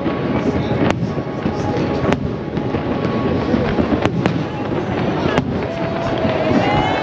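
Aerial fireworks shells bursting in a large display, with sharp bangs every second or two over a continuous rumbling din, and whistling tones sliding in pitch near the end.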